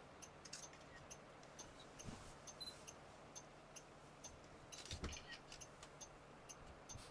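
Near silence with a faint, regular ticking, about two ticks a second, and a single soft knock about five seconds in.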